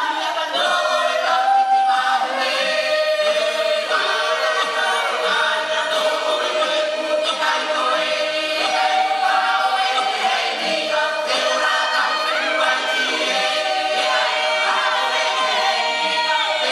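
Tahitian himene choir singing a cappella, many voices together with one note held steadily underneath while the upper voices shift and slide between notes.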